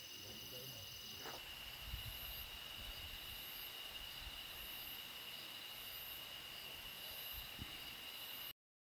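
Night-time chorus of crickets, a steady high-pitched trilling. It cuts off abruptly to silence near the end.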